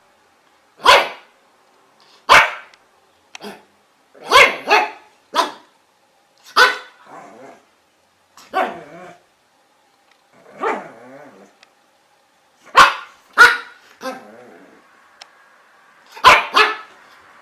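A dog barking in single sharp barks about every one to two seconds, some in quick pairs, with a few lower, rougher barks in the middle.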